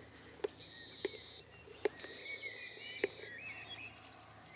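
Faint outdoor birdsong, a thin high held note and twittering, with four sharp knocks spaced roughly a second apart.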